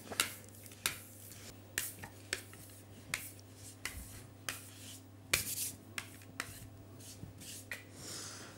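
Fondant smoother rubbed and pressed over a fondant-covered cake: a series of short, irregular scuffs and light taps, about one or two a second.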